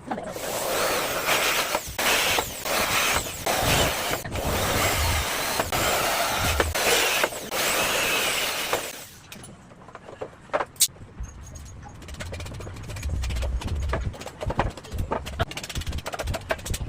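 A power tool running into wood for about nine seconds, then stopping, followed by scattered knocks and clicks of wood and tools being handled.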